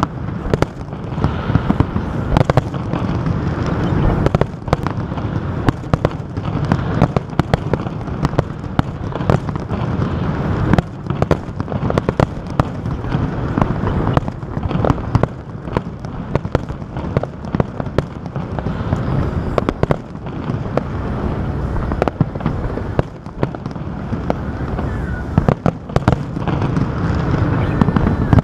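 Fireworks display: a dense run of sharp cracks and bangs over a continuous low rumble of bursting shells.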